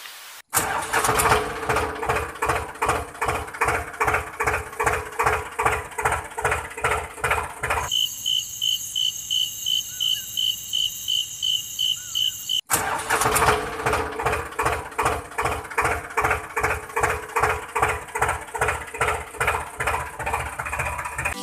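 Tractor engine sound chugging at an even pace of about three beats a second. It breaks off for several seconds in the middle, replaced by a steady row of short high beeps, about three a second.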